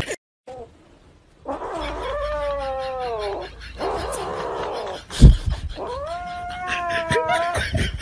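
Grey kitten yowling in three long, wavering calls while it clutches a plush toy that a hand is pulling at: the warning yowl of a cat guarding its toy. A single sharp thump a little past the middle.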